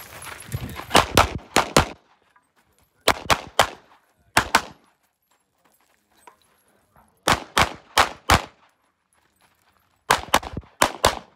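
Glock 17 Gen 5 9mm pistol fired rapidly in strings, two to five shots each a fraction of a second apart, with short pauses between strings while the shooter moves or changes targets.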